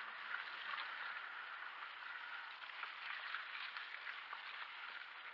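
Mountain bike tyres rolling over a wet, muddy, rutted trail: a steady hiss with small crackles and ticks.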